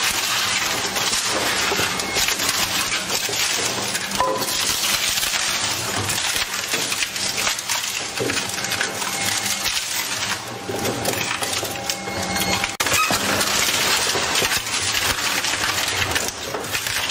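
Twin-shaft shredder's hooked cutter rotors tearing wooden boards into splinters: dense cracking and splintering of wood over the machine's steady hum.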